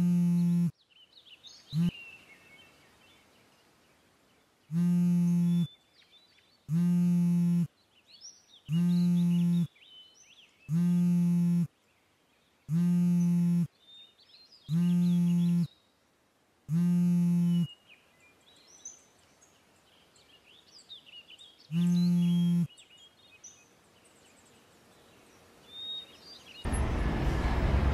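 A mobile phone vibrating against a bed with an incoming call: a steady buzz about a second long, repeated every two seconds, then a pause before one last buzz. Faint bird chirps come between the buzzes, and loud vehicle traffic noise cuts in just before the end.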